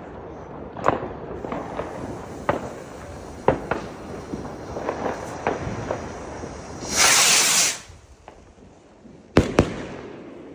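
Funke/Argento 38 mm shell rocket: a loud hiss about seven seconds in as it lifts off on its silver tail, then, two seconds later, two sharp bangs a fraction of a second apart as its shell bursts. Before the launch, other fireworks pop and crack now and then.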